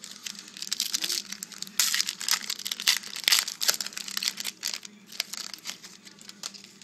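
Foil wrapper of a Panini Certified hockey card pack crinkling and tearing as it is opened by hand: a dense run of crackles, loudest from about two to four seconds in, thinning out near the end.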